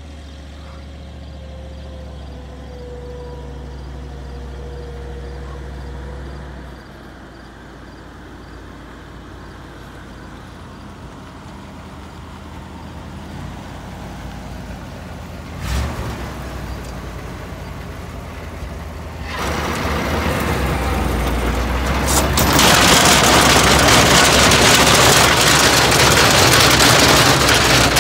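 1974 Ford feed truck's engine running as it drives up, with a brief thump about halfway through. Then the feed box's unloading machinery starts up: a loud, steady rattling rush that steps up louder a few seconds later.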